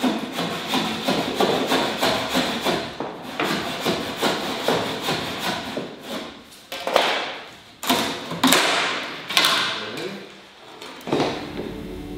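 Hammering: a fast, even run of blows, about four a second, for the first half, then several heavier single strikes, each with a ringing tail.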